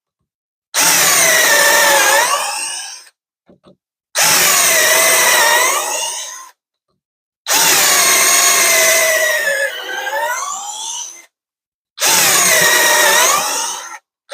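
Cheap 21V cordless drill on its second, faster speed drilling in four separate bursts, a few seconds each. Its motor whine drops in pitch as the bit bites and rises again before each stop.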